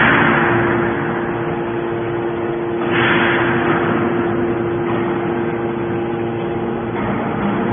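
Hydraulic baler running: a steady hum from its motor and pump. A loud rushing noise swells about three seconds in and fades over a second or so.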